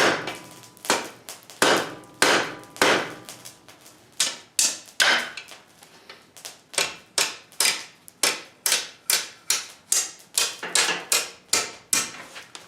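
Hand hammer striking a hot 3/8 inch square steel bar on an anvil, bending its end over on itself for a faggot weld. The blows come spaced and uneven at first, then settle into a steady run of about three strikes a second from about halfway.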